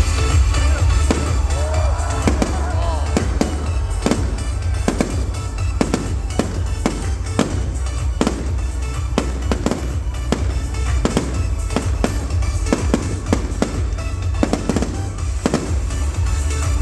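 Fireworks bursting in quick succession, many sharp bangs a second, over music and a steady deep low rumble.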